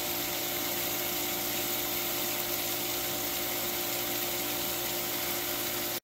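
Swimming-pool pump running: a constant machine hum over an even hiss.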